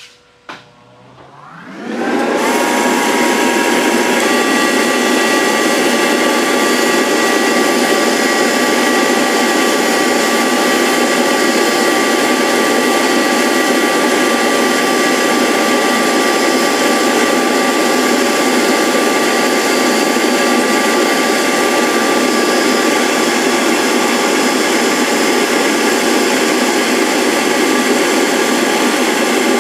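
High-speed cutter motor on a rose engine lathe switched on with a click, spinning up within about a second and a half, then running steadily at an even, high pitch while cutting the rosette pattern.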